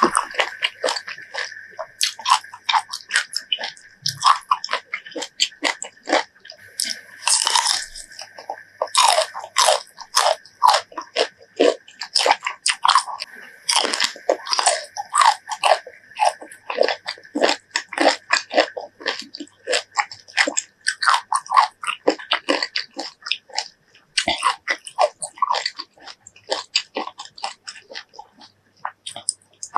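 Close-miked crunchy bites and chewing of crisp raw fruit, many crunches in quick, uneven succession with a few short pauses.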